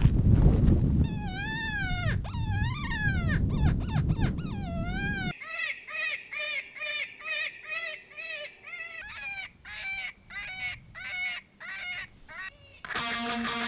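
Coyote vocalizations: a few wavering howls that rise and fall, over a low rumble that stops about five seconds in, then a run of short, quick yips at about two a second. Guitar music comes in near the end.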